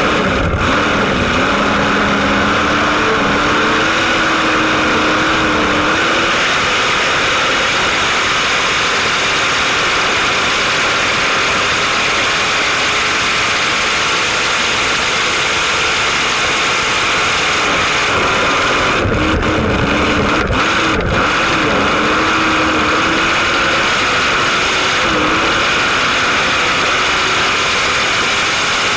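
Racing boat engine running continuously. Its pitch dips and recovers near the start and again about two-thirds of the way through, where a few brief thumps are heard.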